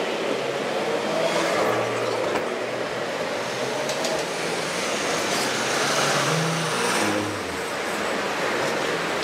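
Steady rushing street noise of cars passing along the road, with a faint engine hum that shifts in pitch now and then.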